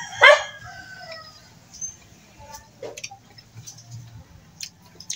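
A rooster crows once near the start. Faint short clicks and smacks of someone eating follow.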